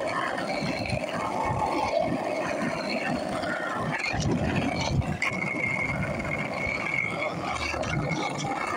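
Skateboard wheels rolling over pavement: a continuous rough rumble. A thin steady high tone joins about five seconds in.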